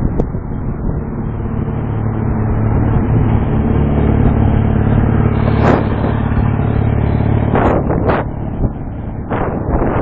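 Motorcycle engine running steadily alongside, swelling to its loudest about halfway and fading as it pulls ahead, over road traffic noise, with a few short bursts of noise near the end.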